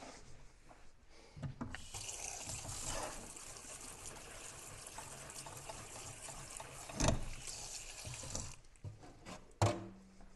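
Kitchen tap water pouring onto cooked pasta shells in a plastic colander in a stainless steel sink. The hiss starts about two seconds in and stops a couple of seconds before the end. There is a knock about seven seconds in and a louder knock near the end.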